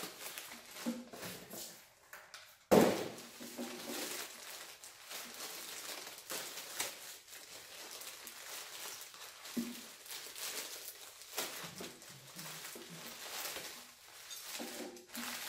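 Clear plastic packaging bags crinkling and rustling as they are handled and unwrapped, with one sharp knock a little under three seconds in.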